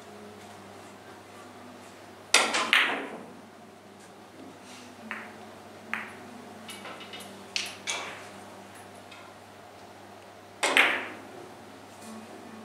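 Carom billiard balls struck by the cue and clicking against each other: a sharp cluster of clicks about two seconds in and another near the end, with softer ball clicks in between.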